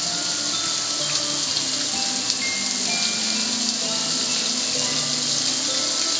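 Garden hose spray nozzle spraying water onto a black gas grill, a steady hiss of spray drumming on the lid and running off, with music faintly underneath.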